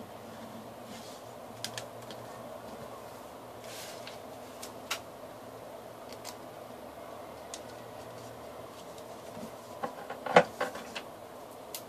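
Sheets of paper being handled and folded: scattered light clicks and crinkles, with a louder cluster of clicks near the end, over a steady room hum.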